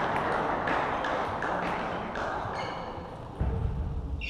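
Scattered sharp clicks of table tennis balls striking tables and bats from play around the hall, over a steady hall din. A low rumble comes in about three and a half seconds in.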